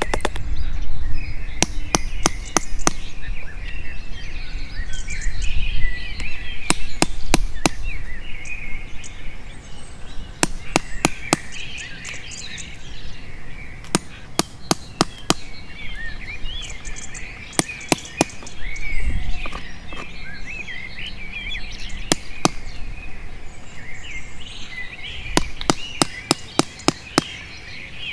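Sharp taps of a metal chisel being struck into a wooden board, coming in clusters of several quick strikes with pauses between. Birds chirp throughout.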